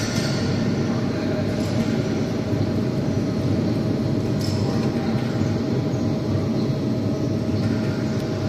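Hydraulic wheelset press running steadily with a continuous low mechanical hum from its hydraulic pump unit, as a wheel is pressed onto the axle.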